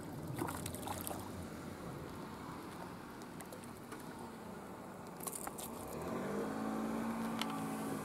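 A motor engine drones in the background, and its hum swells in the last two seconds. Scattered light clicks and splashes sit over a steady outdoor noise.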